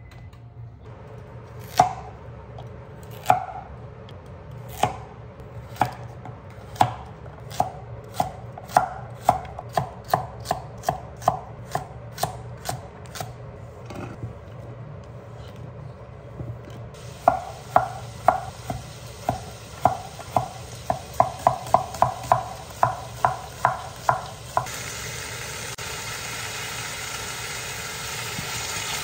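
Cleaver chopping vegetables on an end-grain wooden cutting board: single knocks at first that speed up into a quick run of chops, then after a pause a second fast run. Near the end a steady hiss begins as the vegetables start to sizzle in the pot.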